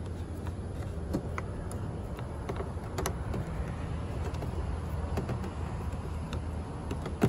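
Small plastic clicks and scrapes from a headlight bulb's wiring connector being worked onto the bulb base inside the headlight housing, over a steady low hum. The clicks are scattered, with a louder one at the very end.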